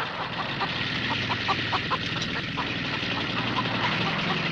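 Horror film soundtrack: a low, steady droning hum under a hiss, with short, high, squawk-like calls repeating irregularly.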